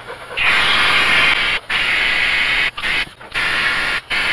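Harbor Freight pneumatic vacuum brake bleeder hissing as compressed air runs through it, drawing brake fluid out of a wheel cylinder's bleeder screw. The hiss starts about half a second in and cuts out briefly four times.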